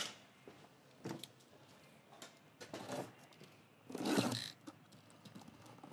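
A cardboard parts box and its packaging being handled and opened: a few light knocks and clicks, then a louder brief rustle of packaging about four seconds in.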